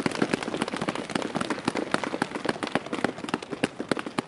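Audience applauding, the individual claps of a modest crowd distinct, thinning out near the end.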